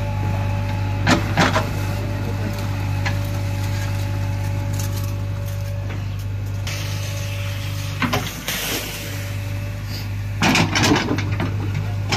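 JCB 3DX backhoe loader's diesel engine running steadily, with short bursts of clatter and scraping from the backhoe bucket digging in rocky soil, about a second in and again twice near the end.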